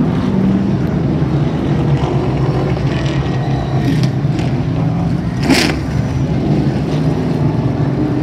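Late model stock cars' V8 engines running in a steady low drone as the field circles the asphalt oval at caution pace behind the pace truck. A short sharp noise cuts through about five and a half seconds in.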